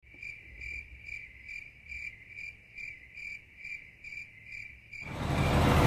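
A cricket chirping steadily, a little over twice a second. About five seconds in, the loud, even noise of a running motor cuts in and drowns it out.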